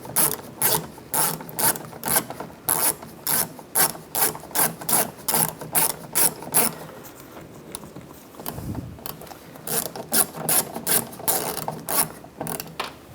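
Hand ratchet with a T20 socket clicking in repeated short strokes, about two clicks a second, as it turns the screw that moves the door handle's inner bracket. The clicking stops briefly a little past the middle, then resumes.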